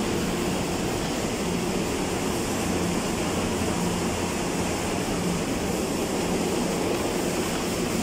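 Package-type air conditioning unit running, a steady whoosh of fan and airflow with a low hum underneath.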